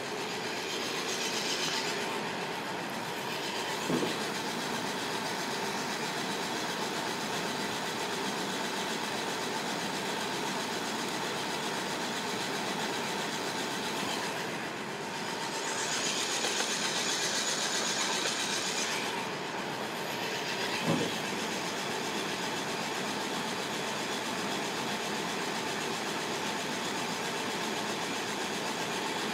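Aillio Bullet induction coffee roaster running mid-roast: steady drum and fan noise, with a single sharp click about 4 seconds in and another around 21 seconds in.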